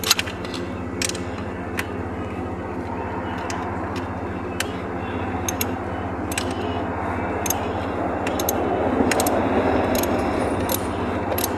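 Scattered sharp metallic clicks of a 3/8-drive ratchet and socket working a nut on an alternator, over a steady low hum.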